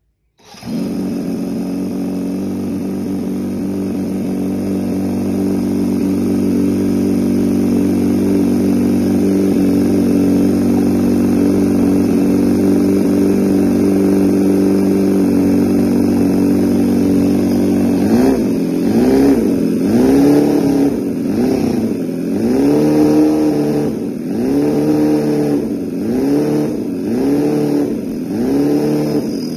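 Enjomor 36cc DOHC inline-four four-stroke model engine running through its 3D-printed metal exhaust and muffler while driving a small DC generator. It holds a steady speed at first, then from about two-thirds of the way through it is revved up and down over and over, roughly once a second.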